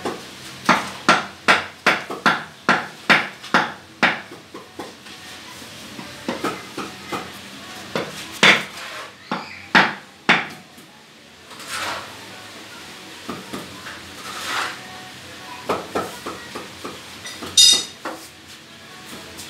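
Hand hammering: a quick run of about ten sharp strikes in the first four seconds, then scattered single knocks, and a brief metallic rattle near the end.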